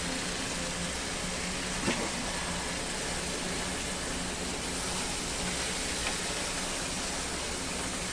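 Steady sizzling hiss of chicken masala cooking in a non-stick pan as yogurt is stirred in, with a few light taps of a silicone spatula. A faint low hum runs underneath.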